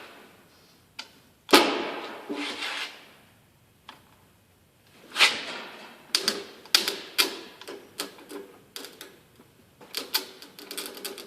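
Irregular sharp mechanical clicks and knocks: a louder knock about a second and a half in, another about five seconds in, then a quicker run of clicks, several a second, until the end.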